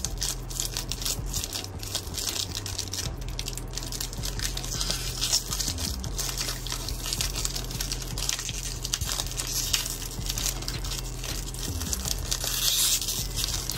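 Trading-card pack packaging crinkling and rustling continuously in the hands as it is picked at and worked open.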